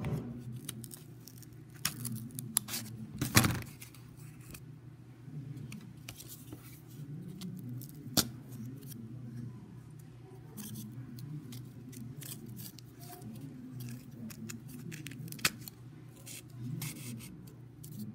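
Hands handling pieces of corrugated cardboard and pushing a thin stick through cardboard discs: scattered rustles, scrapes and sharp clicks. The loudest clicks come about three seconds and about eight seconds in.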